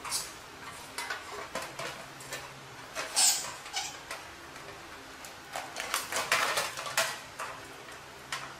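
A mud crab being pulled apart by hand in a stainless steel tray: shell and claws knock and scrape against the metal in scattered clicks. Denser crackling about 3 seconds in and again around 6 to 7 seconds in comes as the top shell is pried off.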